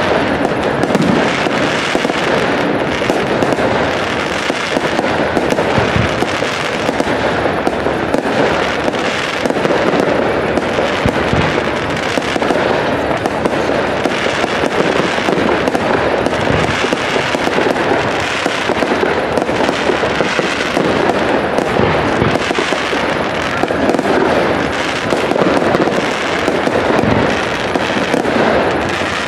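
Aerial fireworks bursting in a dense, continuous crackle of many small reports from crackling stars, with a deeper bang now and then.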